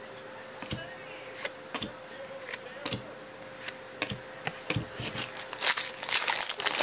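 Trading cards handled and shuffled, giving scattered light clicks and flicks of card stock, then near the end a dense crackle as a foil card pack wrapper is crinkled and torn open.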